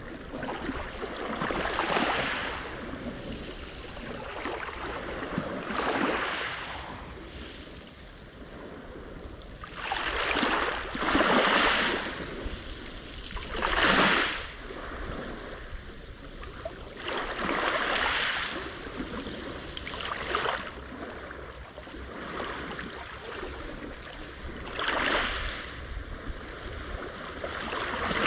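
Black Sea waves breaking on the shore, each wave a one- to two-second surge of wash, about eight in a row, over a steady background of surf.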